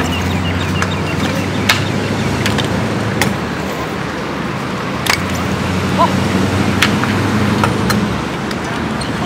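Stunt scooter wheels rolling over a concrete skatepark bowl: a steady low rumble, broken by about eight sharp clicks and knocks as the wheels and deck strike the concrete and coping.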